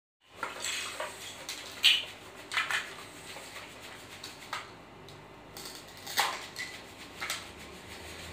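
Plastic toy pieces knocking and clicking against each other and the wooden floor as they are handled, in short irregular clacks about a second apart.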